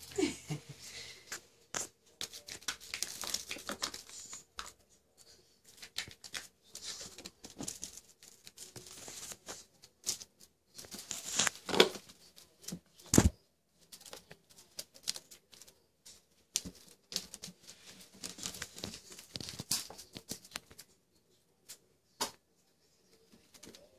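Kittens playing on a rug and carpeted cat tree: irregular scratching, scrabbling and rustling from claws and toys, with scattered clicks and a couple of sharper knocks a little past halfway.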